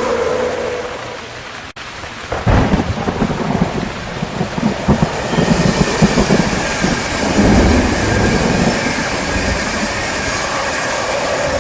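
Steady rain with a roll of thunder that breaks in suddenly about two and a half seconds in and rumbles on, swelling and fading, for several seconds. Just before it, the sound dips and cuts off sharply for an instant.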